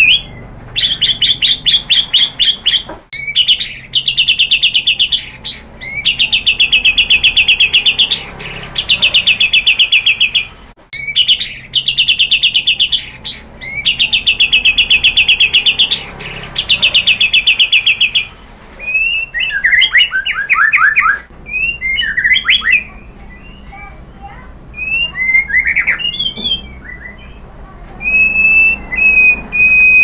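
White-rumped shama (murai batu) singing: long runs of fast, even trills with brief breaks, then varied short whistled phrases, some falling in pitch, and a steady high whistle near the end.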